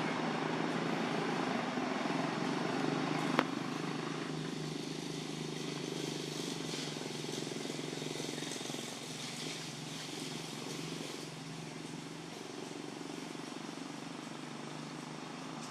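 Steady low motor hum under outdoor background noise, with a single sharp click a little over three seconds in.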